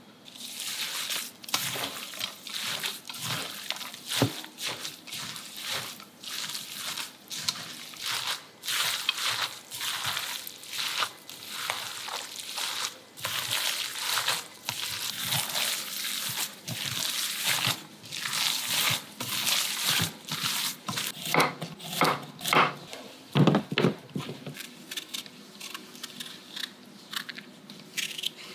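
A soft filling of ground meat, tofu and chopped vegetables being mashed and stirred in a stainless-steel bowl with a plastic utensil: repeated wet squishing strokes, roughly one or two a second. The strokes stop near the end.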